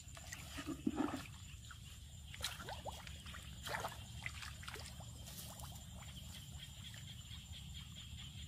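Shallow muddy water splashing and trickling, with scattered small splashes and scrapes as a hooked metal rod is worked into the mud bank at the water's edge. The loudest splashes come about a second in.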